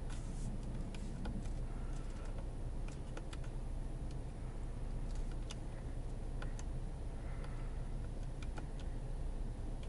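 Irregular small clicks from the steering-wheel control buttons as the instrument-cluster menus are scrolled, over the steady low hum of the Passat's 1.5 TSI four-cylinder engine idling, heard inside the cabin.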